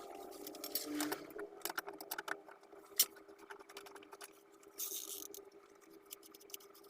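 Small metallic clicks and rattles of tools and parts being handled while a car's automatic seat belt retractor is taken off, with one sharp click about three seconds in and a brief hiss near five seconds.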